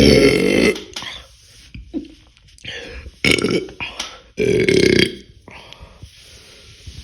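A young woman belching: a long, loud burp at the start, then two shorter burps a few seconds later.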